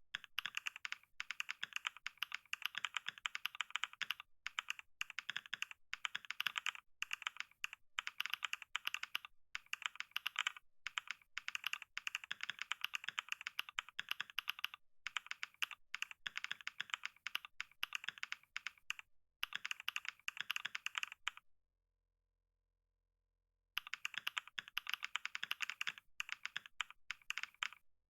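Fast, continuous typing on a computer keyboard, a dense run of rapid key clicks. The typing stops dead for about two seconds near the end, then starts again.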